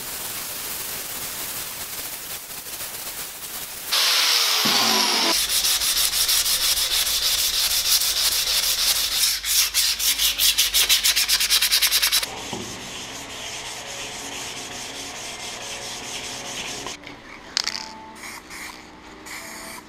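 Hand sanding the edges of black-painted steel flat-bar table legs with abrasive paper, wearing the paint back for a distressed look. It goes in rapid back-and-forth strokes, loudest through the middle, then lighter rubbing.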